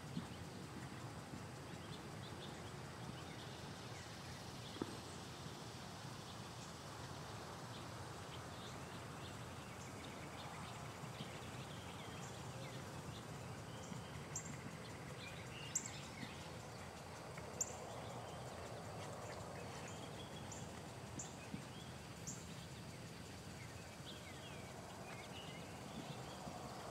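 A horse's hoofbeats, muffled on sand arena footing, over steady outdoor background noise, with a few short high chirps through the middle stretch.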